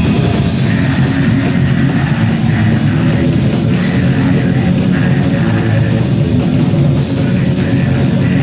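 A black metal band playing live and loud: distorted electric guitars, bass and a drum kit in a dense, unbroken wall of sound.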